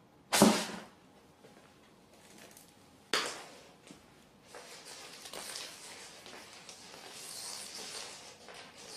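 A cat at play: two sharp knocks about three seconds apart, then several seconds of scratchy rustling.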